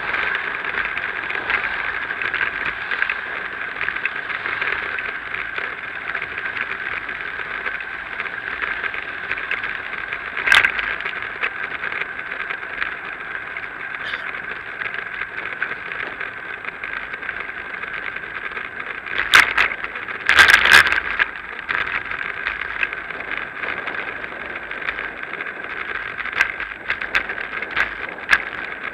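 Bicycle riding noise picked up by a bike-mounted action camera: a steady hiss of wind and tyres. Sharp rattling knocks come a little past ten seconds in, a louder cluster about two-thirds through, and a few light ticks near the end, as the bike goes over bumps.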